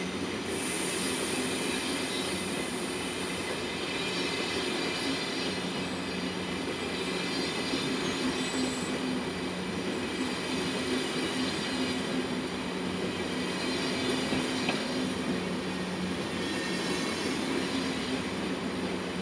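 Passenger train of SBB coaches rolling slowly over the station tracks: steady running noise and a low hum, with thin high wheel squeal throughout and a little clatter over the rail joints. A high hiss sounds for about three seconds near the start.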